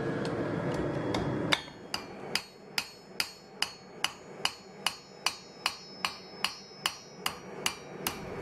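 Hand hammer striking a red-hot knife blade on an anvil in a steady rhythm of about two and a half ringing blows a second, starting about one and a half seconds in. Before the blows, the forge gives a steady rushing roar.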